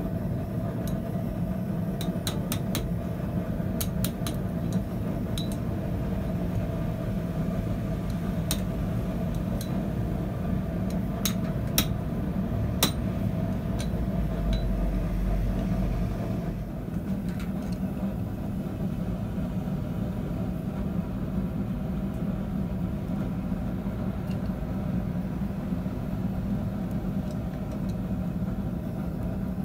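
A forge running with a steady roar, with sharp metallic clicks and light taps of tongs and hammer on a hot 6 mm steel rod at the anvil, scattered through the first half.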